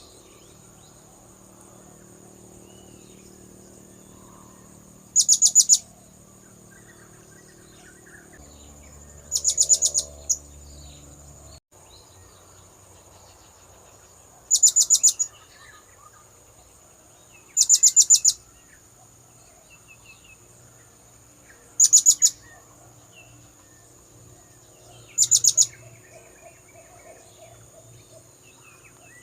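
Blue-crowned hanging parrot (serindit) lure call: six short, loud bursts of rapid, very high-pitched chirps, each about half a second long, repeating every three to four seconds.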